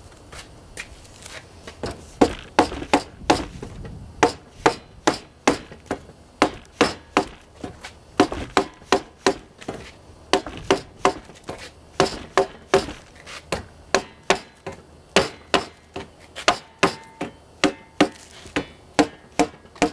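Rubber mallet tapping a metal extrusion rail onto the edge of a polycarbonate greenhouse panel to seat it, in a steady series of sharp knocks at about two to three blows a second.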